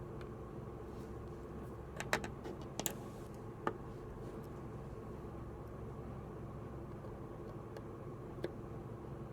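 A few sharp clicks and light knocks, clustered about two to three seconds in, with single ones later, over a steady low hum.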